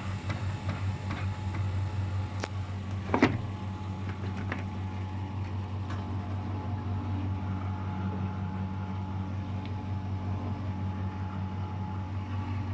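Luxor WM 1042 washing machine spinning at 600 rpm with an unbalanced load: a steady hum with rattling clicks and one loud knock about three seconds in.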